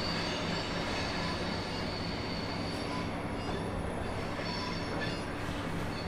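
Train rolling slowly through the station over a steady low hum, its wheels squealing high on the curved track; the squeal fades after about three seconds.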